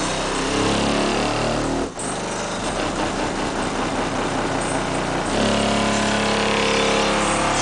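Loud deep bass from two 18-inch Fi BTL subwoofers on an 800-watt amplifier, playing inside a 2003 Chevrolet Silverado's closed cab and heard from outside the truck. The low notes step from pitch to pitch, with a brief drop about two seconds in.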